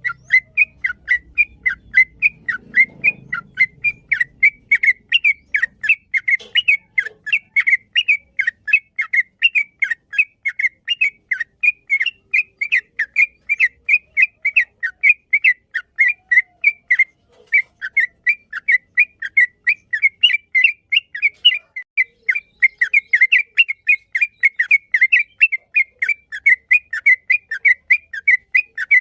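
Yellow-vented bulbul (trucuk) singing a long, unbroken run of short, whistled notes, about three a second, evenly paced: the long 'ropel' song used as a master recording for training songbirds.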